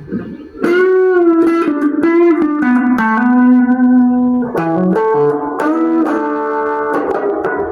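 Electric guitar played through a RAT distortion, compressor, phaser and reverb pedal chain: sustained, singing single notes with bends, starting about half a second in.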